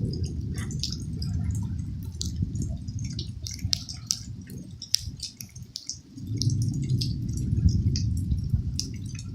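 Heavy rain dripping and splashing, many sharp close drops, over a low rumble that fades about five seconds in and swells again a second later.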